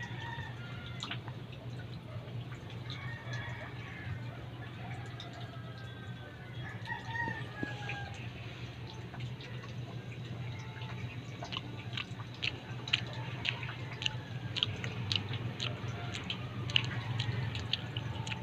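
Small wet clicks and smacks of a toddler sucking and chewing the pulp off fresh cacao beans, coming thick and fast in the second half. Chickens call faintly in the first half.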